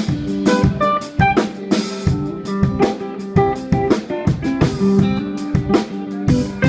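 Live rock band playing through a sound check: a drum kit keeps a steady beat of kick, snare and rimshot hits under electric guitar notes.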